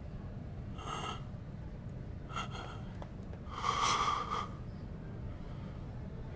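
Three short sniffs or breaths, the third longer and louder, as people inhale the scent of a drugged sachet held under their noses, over a steady low hum.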